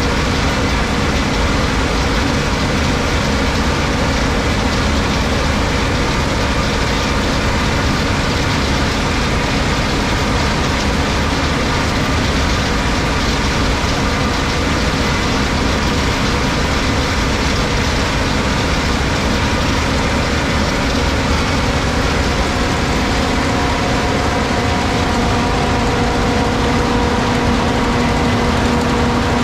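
Tracked Case IH 8250 combine harvester running steadily: a dense mechanical din with a steady hum that grows a little stronger near the end.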